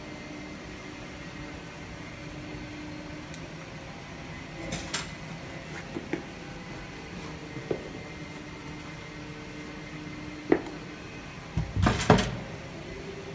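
Changing-room locker door and its lock being handled: a few light clicks, then a sharp click and a cluster of louder knocks and bangs as the door is pushed shut near the end, over a steady hum.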